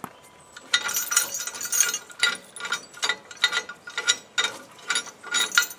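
Steel logging tongs and their chain clinking and rattling against the log skidder's steel frame as they are unhooked, a run of irregular metallic clatters starting about a second in.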